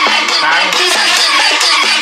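Music with a steady beat playing loud through a palm-sized Xiaomi Bluetooth speaker. The sound is thin, with almost no bass.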